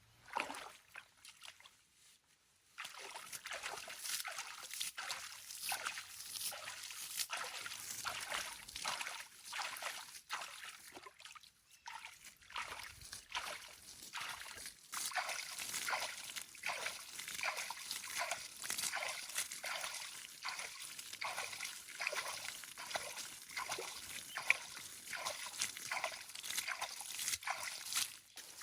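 Water sloshing and splashing in a run of repeated strokes, about one to two a second, starting a few seconds in with a brief pause midway.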